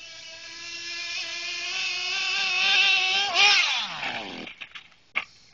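Radio-controlled car's small motor running at high speed, its pitch and loudness climbing slowly. About three and a half seconds in it is at its loudest, then its pitch drops steeply and it fades. A sharp knock comes near the end.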